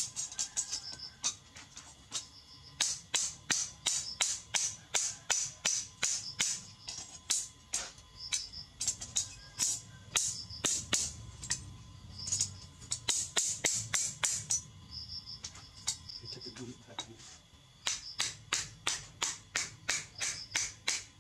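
A hammer striking a chisel held against a steel motorcycle brake disc rotor on a steel-plate anvil, cutting the disc: sharp ringing metallic blows about two to three a second, in runs broken by short pauses.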